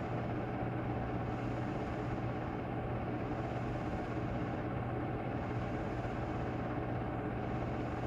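Steady, unchanging low hum with hiss: an 8 mm film projector running in the room, picked up on a home tape recording.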